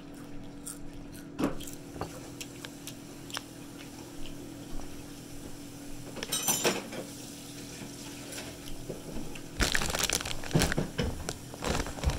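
Flamin' Hot Doritos chip bag crinkling as it is handled, starting loud and dense near the end. Before that there are only scattered light clicks and knocks over a steady low hum.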